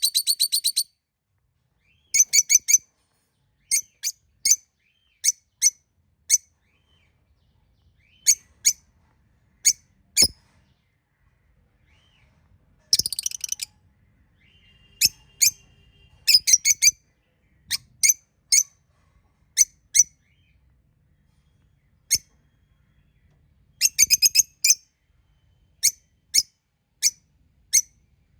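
Several budgerigars giving short, sharp, high-pitched chirps, singly or in quick pairs and runs with short pauses between, and a longer rapid chattering run about halfway through.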